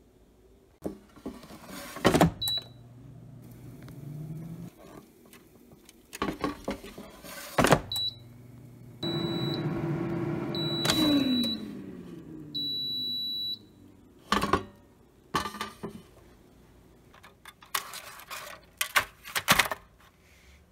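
Instant Vortex Plus air fryer in use: a few sharp clunks of the basket being handled, short high beeps from the control panel, and about halfway through a fan whirring that drops in pitch as it spins down, followed by a longer beep as cooking ends.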